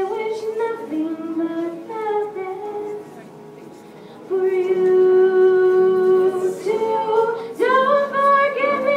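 A girl singing solo into a microphone, amplified over the hall's speakers. Her voice drops softer for a moment, then about four seconds in she holds one long, loud note for over two seconds before moving on through further notes.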